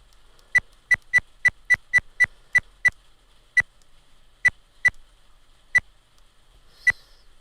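Bopower 4K action camera's button beep: about fourteen short, identical high beeps, one per button press as the clock time is stepped up. They come in a quick run of about three a second for the first three seconds, then more slowly.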